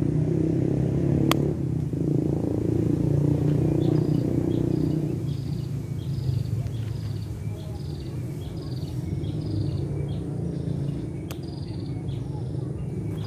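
Low rumble of road traffic, loudest over the first few seconds as a vehicle passes and then easing to a steady drone. From about four seconds in, a small bird calls a quick run of short high chirps, about two a second.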